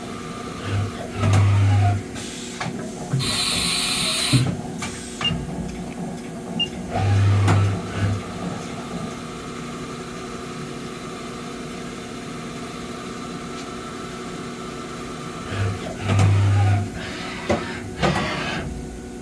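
A Haas VF-2B CNC vertical machining center running, with a steady motor hum. Short whirring moves repeat about every seven seconds, and a burst of hiss comes about three seconds in.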